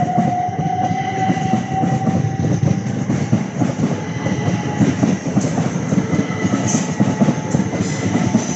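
Class 375 electric multiple unit moving through the station: a steady electric motor whine that rises slightly in pitch and fades over the first few seconds, over a continuous rumble of wheels on the rails.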